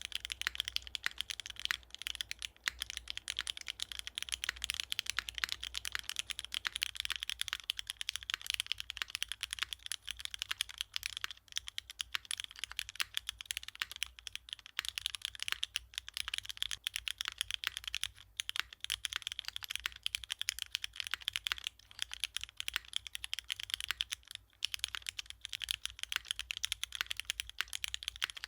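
Fast, continuous typing on an F1-8X V2 Raptor custom mechanical keyboard with polished Cherry MX Black linear switches, GMK keycaps, an aluminium leaf-spring plate and no foam. It gives a clacky sound, with a few brief pauses in the keystrokes.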